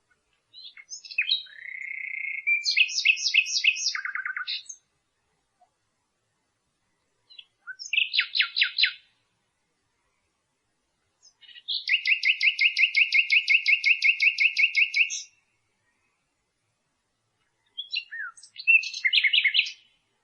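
Common nightingale singing: four separate song phrases of whistles and fast repeated notes with silent pauses between them. The third phrase is a long rapid run of about six notes a second, lasting some four seconds.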